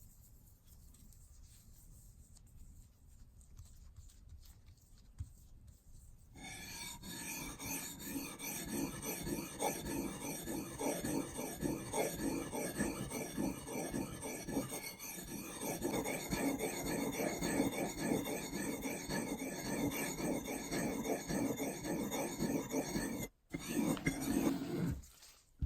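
Abrasive rasping work on the axe or its wooden handle, in close repeated strokes, starting about six seconds in after a faint stretch and briefly cutting out twice near the end.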